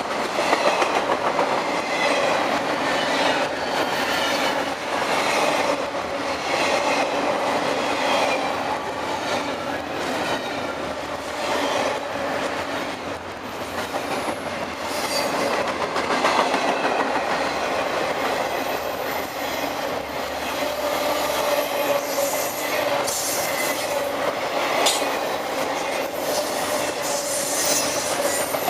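Freight cars of a CSX intermodal train rolling past: a steady rumble of wheels on rail with a rhythmic clatter. A thin, high wheel squeal comes and goes in the second half.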